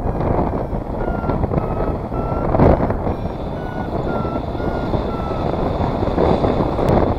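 Paragliding variometer beeping about twice a second, its short beeps stepping slightly up and down in pitch: the climb tone that signals the glider is rising in lift. Behind it, steady wind rush over the camera's microphone.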